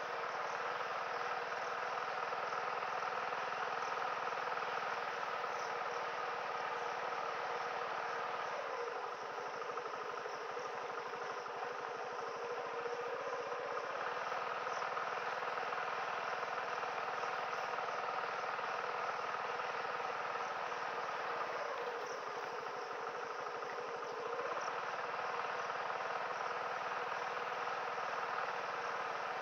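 TVS XL 100 moped's small single-cylinder four-stroke engine running along a dirt track, its low note dropping away twice for a few seconds as the throttle eases, over a steady insect chorus.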